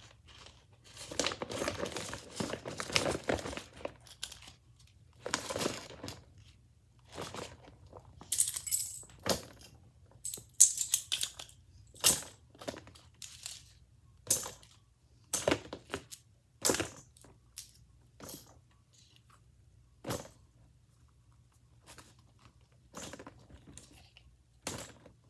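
Fidget toys being stuffed into a bag: rustling at first, then irregular sharp clicks and knocks as the hard pieces clatter against each other.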